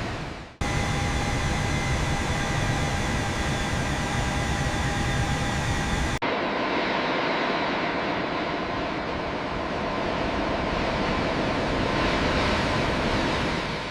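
Jet airliner engines running steadily: a loud rush with a high whine. Just after six seconds it cuts abruptly to a duller rush with less of the whine.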